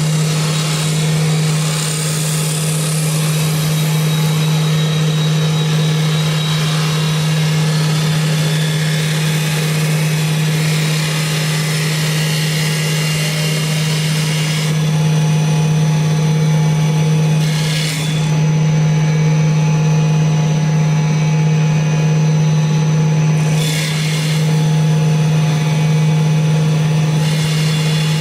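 CNC wood lathe turning a spinning wooden blank: a steady motor hum under the hiss of the cutters on the wood. The cutting hiss changes as the tools travel along the piece, thinning out a little over halfway through and coming back in short stretches.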